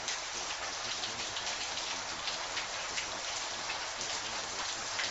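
Recorded rain: a steady hiss of rainfall with individual drops striking throughout.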